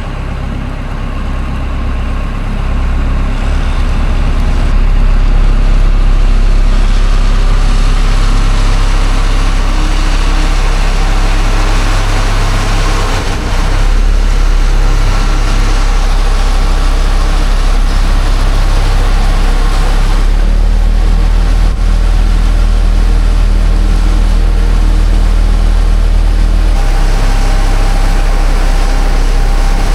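Heavy tractor engine running steadily under load, with a deep hum and machinery noise, getting a little louder about five seconds in.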